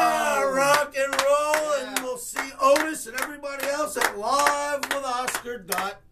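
A man singing a loud sing-song chant without clear words, the first note held, with quick hand claps joining in from about a second in.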